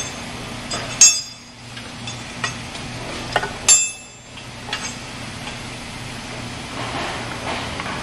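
Sharp metallic clinks of a wrench and bolts handled against a ductile iron pump casing: two loud ringing clinks, about a second in and just before the four-second mark, with lighter clicks between, over a steady low hum.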